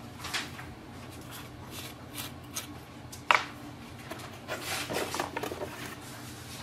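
Light handling of a plastic refill ink bottle and its nozzle cap: one sharp plastic click a little over three seconds in, then a few soft clicks and rustles about a second later, over a faint steady hum.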